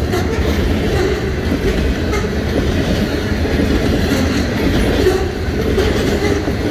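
Canadian Pacific freight train's covered hopper cars rolling past: a steady heavy rumble with the clatter of steel wheels on the rails.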